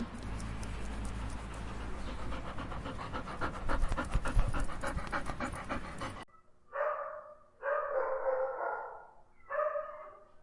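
A dog panting rapidly, then after an abrupt cut three separate dog calls, the middle one the longest.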